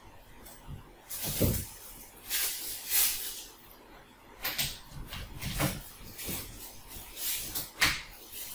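Brush cutter throttle handle being pushed and worked into its bar clamp by hand: a series of irregular scrapes and light knocks of plastic and metal.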